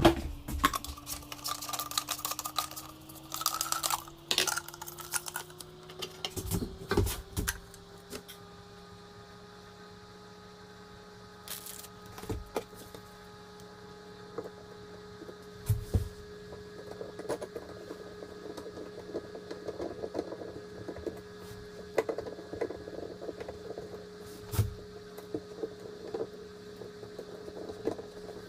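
A steady motor hum that rises in pitch over the first few seconds and then holds, with scattered knocks and clicks of parts and tools being handled.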